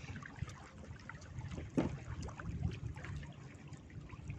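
Water trickling and lapping against a small fishing boat's hull, with scattered light clicks and one sharp knock about two seconds in.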